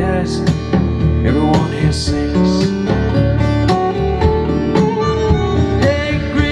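Music: a country-style song with guitar, singing and a steady beat.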